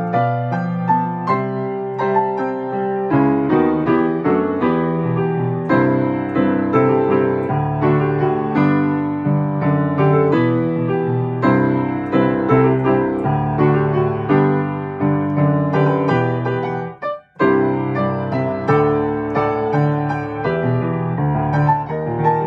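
Grand piano played solo, melody and chords throughout, with a brief gap about seventeen seconds in.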